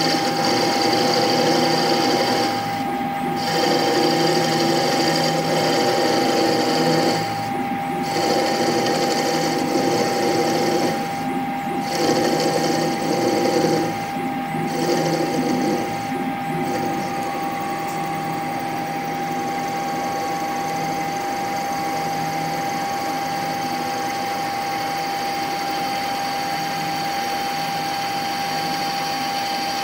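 CNC lathe turning an aluminium cone, the tool cutting in passes both ways without retracting, over a steady machine whine. The cutting noise breaks off briefly every few seconds, then about 17 seconds in settles to a steadier, quieter run.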